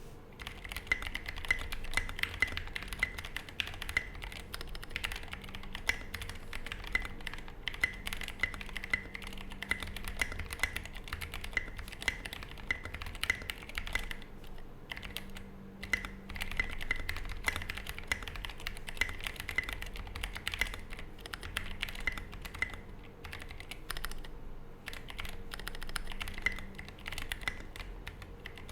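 Fast, continuous typing on an S7 Elephant custom mechanical keyboard, with lubed Zealios V2 tactile switches, SA profile keycaps and a polycarbonate plate. A dense stream of key clacks, broken by a couple of brief pauses.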